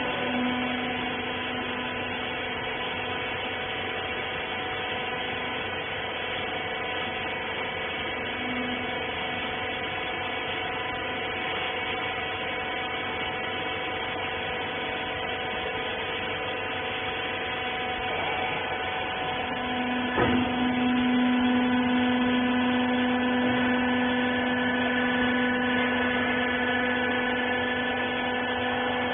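Hydraulic rag baler's electric motor and pump running with a steady whine. About twenty seconds in there is a click, then a lower hum comes in and the machine gets louder.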